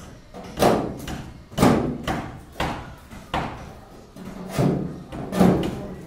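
Timber formwork shuttering being knocked loose from a freshly cast concrete slab: six heavy wooden knocks, about one a second, each with a short ringing tail.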